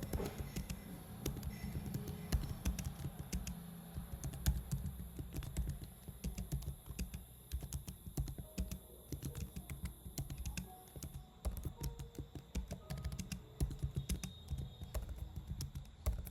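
Computer keyboard being typed on quickly, an uneven run of key clicks several a second.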